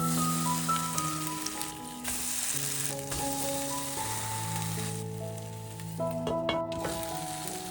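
Food frying in oil in a pan, a steady sizzle that drops away briefly about five seconds in and returns, with a few light clicks. Soft background music plays over it.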